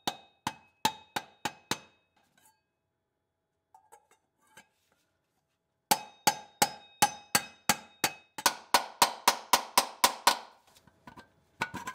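Hammer tapping the installation tool to drive a repair sleeve onto a grooved crankshaft seal surface, each blow a sharp metallic ring. There is a run of about six taps, a pause of a few seconds, then a longer run that speeds up to several taps a second, and two last taps near the end.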